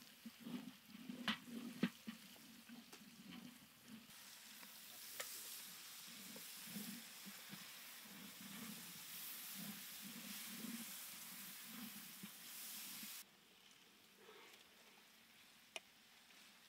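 Long wooden spatula stirring vegetables and spices frying in oil in a large aluminium pot, with repeated scraping strokes and a few sharp knocks against the pot in the first two seconds. A sizzle rises under the stirring and cuts off abruptly about 13 seconds in.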